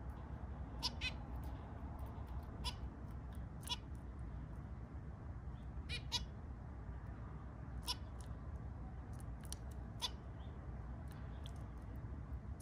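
Zebra finches giving short, sharp calls, single or in quick pairs, scattered irregularly over a steady low hum.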